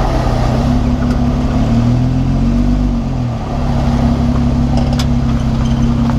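Jeep Wrangler JK on the move with a steady drivetrain whine over the running noise, which the owner thinks sounds like it comes from the rear differential. The pitch dips briefly about three seconds in, then holds steady again.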